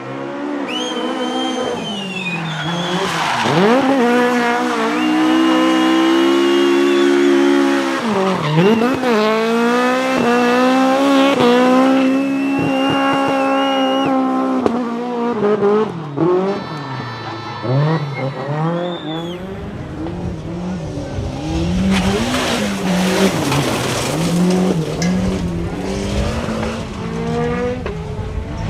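Rally car engines at full throttle, the pitch climbing and then dropping back at each gear change, with a high thin whine running above the engine in the first half. About two-thirds through the sound changes abruptly to quicker rises and falls in engine pitch over a low rumble.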